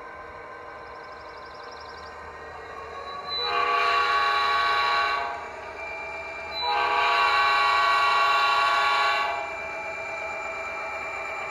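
Sound-equipped model Norfolk Southern GP-60 diesel locomotive sounding its horn through its onboard speaker: two blasts, the second one longer, over the steady sound of its simulated diesel engine.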